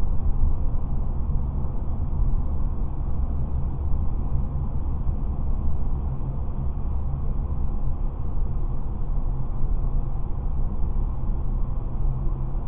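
Steady low rumble of a car driving at speed through a road tunnel, tyre and engine noise heard from inside the cabin.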